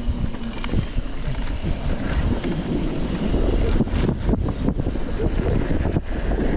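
Wind rushing over the microphone as a mountain bike rolls downhill, its tyres moving from pavement onto a dirt trail. From about halfway in the rumble gets louder and the bike clatters and knocks over the bumps.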